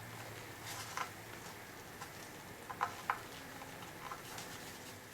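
A pry tool working around the sealant-bonded thin aluminium case of a 1997 Dodge Ram 1500 ECU: a few sharp clicks, with two close together near the middle, and lighter ticks between them.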